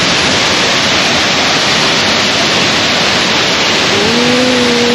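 Loud, steady rush of falling water from a waterfall. A steady pitched tone, like a held voice or horn, starts near the end.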